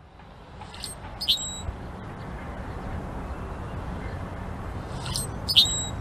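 Male Brewer's blackbird giving its short creaky song twice, about four seconds apart: each a harsh squeak followed by a brief high whistled tone, over a steady low rumble.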